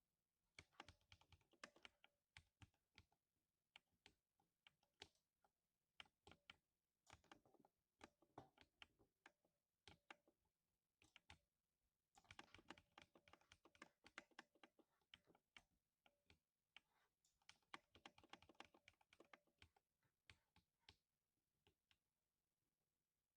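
Lubed 60% mechanical keyboard being typed on, quiet overall, each keystroke a short thock. The keys come in runs of fast strokes broken by brief pauses.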